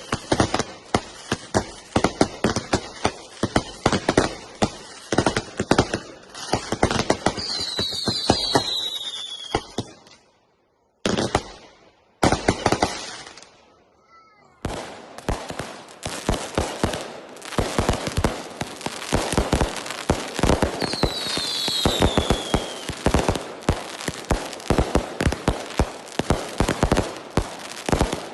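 Five 200 g consumer firework cakes firing together in a rapid, overlapping barrage of shots and breaks, with a brief falling whistle three times. The firing dies away about ten seconds in and starts again dense and loud about four seconds later.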